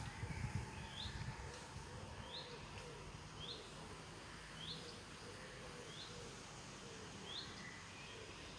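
A bird repeating one short, high chirp about once a second, evenly spaced, over a faint steady outdoor hiss. A low rumble in the first second, from wind or handling of the phone.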